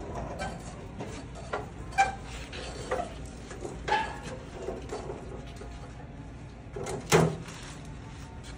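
Scattered knocks and clunks of boxes of flooring being handled and stacked onto a metal flatbed cart, a second or so apart, with the loudest thump about seven seconds in.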